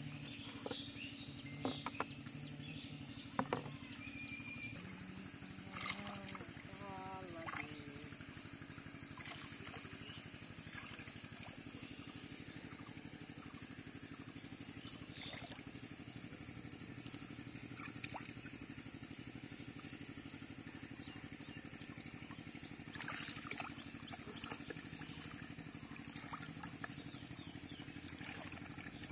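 A steady low engine hum from a motor running at a distance, with a high, even hiss above it. A few light knocks of plastic bottles being handled in the first few seconds.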